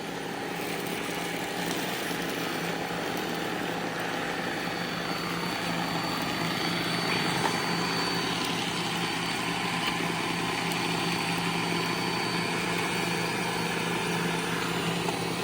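Robot vacuums running together, a steady whirring hum of their suction motors and brushes with a constant low tone.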